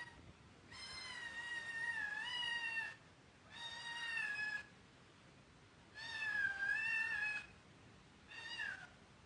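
A kitten mewing repeatedly in high-pitched, wavering cries: four separate calls, the first lasting over two seconds.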